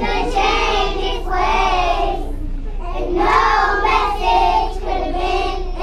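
A class of preschool children singing a song together, in short phrases with a brief pause for breath about two and a half seconds in.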